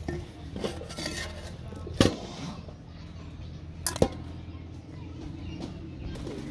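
Fish roe being handled in a stainless steel bowl, with a sharp metallic knock from the bowl about two seconds in and two more in quick succession near four seconds, over a steady low hum.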